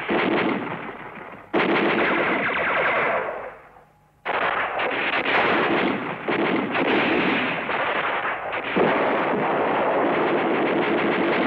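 Rapid battle gunfire: long runs of machine-gun and rifle shots. It breaks off to near silence for a moment about four seconds in, then starts again.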